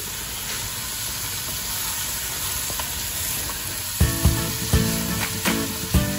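Cubes of beef brisket sizzling in hot oil in an aluminium pressure cooker while being stirred with a wooden spatula, searing with onion, garlic and ginger before the pressure cooking. About two-thirds of the way in, background music with a beat starts over the sizzling.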